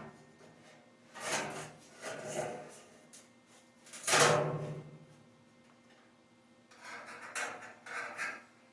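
Several bouts of rubbing and scraping as parts are handled, the loudest about four seconds in and two more near the end.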